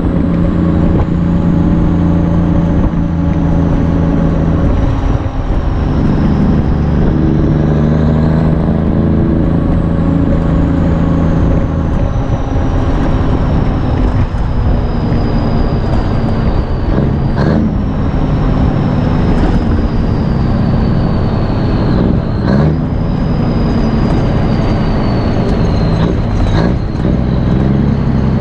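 Straight-piped Cummins NTC 240 small-cam diesel, a turbocharged 855 inline six, pulling hard through the gears of a 10-speed truck. The exhaust note dips and changes pitch about five seconds in, as at a gear change. A high turbo whine climbs around eight seconds in and then slowly falls, and a few sharp clicks come in the second half.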